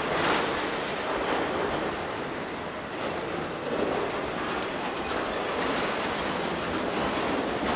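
Autorack freight cars rolling past on a CSX manifest train, a steady rumble of steel wheels on rail with occasional clicks.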